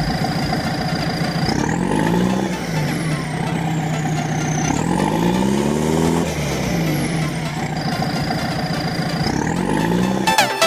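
A heavy vehicle engine, like a truck's, running and revving up three times, its pitch rising and falling back each time. Music with a beat comes in near the end.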